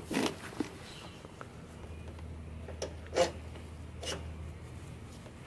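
Metal lawnmower carburetor and its linkage being handled and pushed onto the engine's intake by hand: a short rub at the start, then sharp clicks about three and four seconds in.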